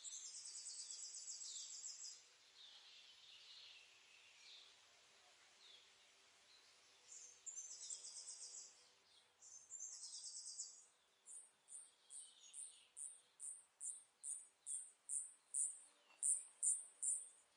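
Faint bird and insect ambience: high buzzing insect trills in patches, with a few falling bird chirps. Over the last six seconds a run of short high chirps, about two a second, grows steadily louder.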